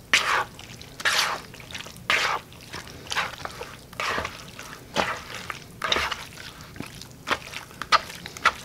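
Spoon folding and mashing a wet, mayonnaise-bound flaked fish mixture in a plastic bowl: a squelching stroke about once a second as breadcrumbs are worked in to stiffen it.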